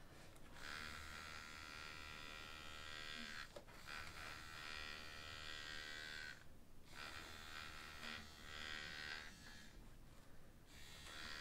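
Scruff-a-Luvs Cutie Cuts toy clippers buzzing steadily as they shave the fur off a plush puppy, in long stretches with short breaks about 3.5, 6.5 and 10 seconds in.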